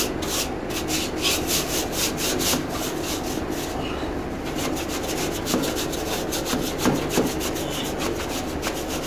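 Plastic broom bristles scrubbing back and forth across a refrigeration condenser's finned coil to clean the dust out of it: a run of scratchy strokes, about three a second at first, then quicker after a short lull about four seconds in.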